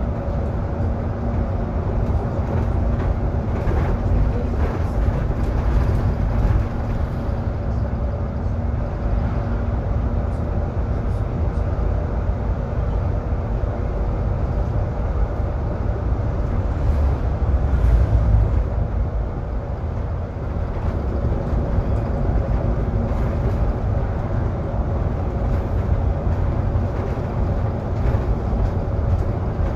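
Interior sound of a Solaris Urbino 18 articulated city bus on the move: a steady low road and drivetrain rumble with a constant hum, swelling briefly louder about eighteen seconds in.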